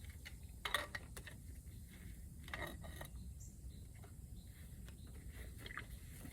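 Faint, scattered clicks and taps of metal parts being handled while a brass pressure reducing valve is taken apart by hand, about five light clicks spread through a few seconds.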